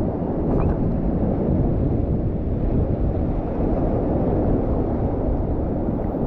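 Wind buffeting the microphone over the steady wash of ocean surf, a loud, even rush heaviest in the low end.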